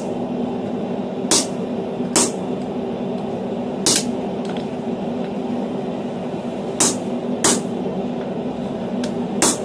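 Hammer striking a dapping punch set on a red-hot railroad spike lying on a steel anvil block: six sharp metallic blows at uneven intervals, punching round depressions deeper into the hot steel. A steady hum runs underneath.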